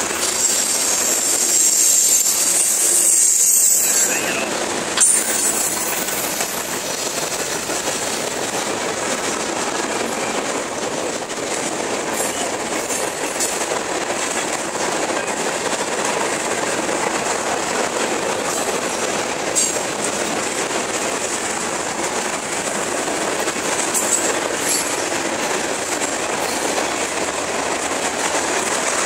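Freight cars of a long mixed freight train rolling past at speed: a steady rumble and rattle of steel wheels on rail, with occasional clicks over rail joints. There is a brighter, high-pitched wheel hiss for the first few seconds.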